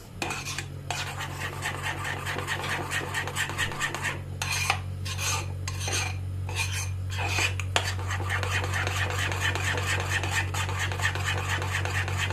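A metal spoon whisking a thick yogurt and egg-yolk mixture in a small metal bowl: fast, repeated scraping and clinking strokes against the bowl, broken by a few brief pauses. A steady low hum runs underneath.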